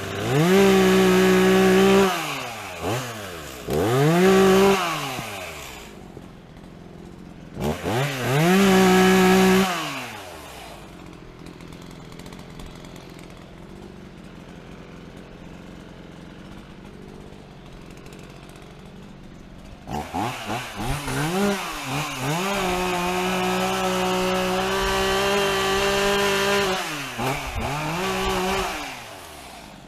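Gas chainsaw revving hard in short bursts, idling through a long quieter middle stretch, then held near full throttle for about nine seconds before dropping back, as it cuts up fallen trees.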